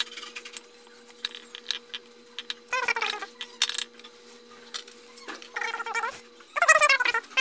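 A cat meowing three times, each call falling in pitch, with light clicks and taps between the calls and a steady low hum underneath.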